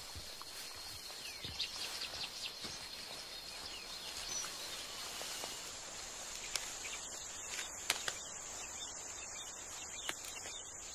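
Forest ambience: a steady high-pitched insect drone, with a few short bird chirps in the first three seconds and faint scattered ticks. About six seconds in, a higher-pitched insect drone takes over.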